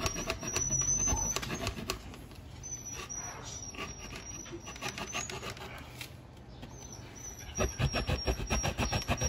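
Thin blade sawing and scraping through the plastic of a Yamaha Sniper 150's stock rear fender, cutting it down bit by bit in short strokes. The strokes come thinner in the middle and turn quick and louder near the end.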